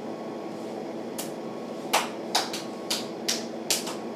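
A run of about eight short, sharp clicks and knocks, irregularly spaced and starting about a second in, the loudest at the very end, over a steady low hum.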